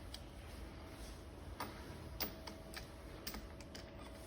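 Faint, irregular light clicks and taps of hands setting the hose crimper's micrometer adjustment. A faint steady hum comes in about one and a half seconds in.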